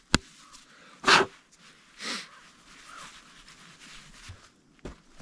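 Two short, sharp puffs of breath about a second apart, the first the louder, with a light knock just before them and two more knocks near the end.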